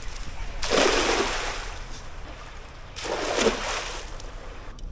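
Water splashing twice, about two and a half seconds apart. Each splash is a rush of noise that fades over about half a second.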